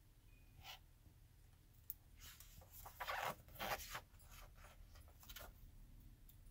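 Paper rustling as the pages of a hardcover picture book are handled and turned, in several short scratchy bursts, loudest about halfway through.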